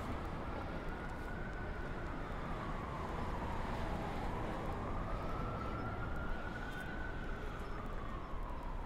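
Distant city traffic hum with a siren slowly wailing up and down, twice over.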